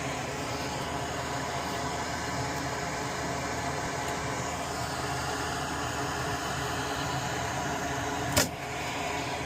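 Fume extractor fan running steadily at the soldering bench, with one sharp click near the end.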